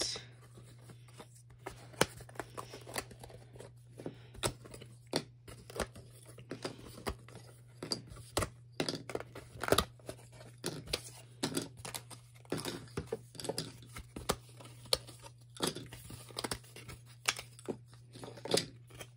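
Thick cardboard punchboard sheets of a board game being lifted, shuffled and handled: irregular scrapes, rustles and sharp cardboard taps and snaps.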